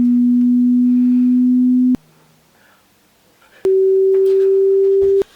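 Two loud pure-tone hearing-test beeps. A low steady tone lasts about two seconds, then after a pause a somewhat higher tone lasts about a second and a half. Each switches on and off abruptly with a click.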